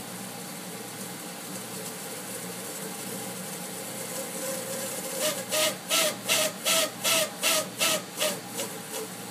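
Geothermal heat pump valve making its periodic noise: about halfway through, a rapid run of about ten hissing pulses, roughly three a second, each with a short tone, fading near the end. A steady hum from the running unit lies underneath.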